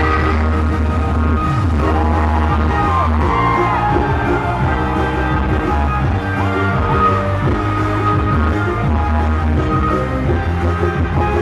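Live pop-rock band music with drums, bass and guitar, and a female voice singing over it.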